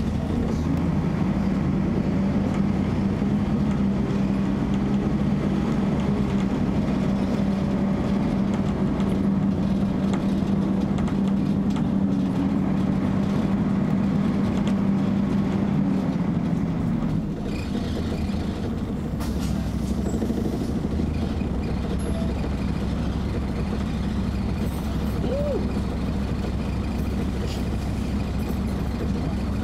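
Bus engine and radiator cooling fan heard from inside the saloon while the bus drives: a steady drone that drops away about 17 seconds in, leaving quieter running. A short hiss follows a couple of seconds later.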